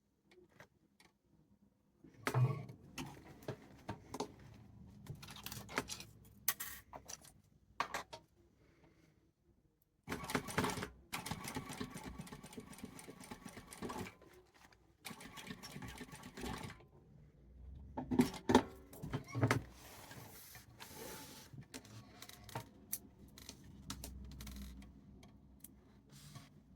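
Sewing machine stitching leather in several stop-start runs, with a few knocks as the work is handled between them.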